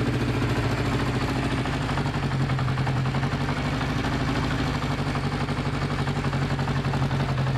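Honda CB500 Four's air-cooled inline four-cylinder engine idling steadily, warmed up for the first time after a rebuild.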